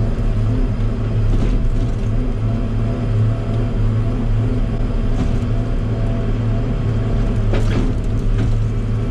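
Log loader's engine running with a steady low hum, a few faint brief sounds over it.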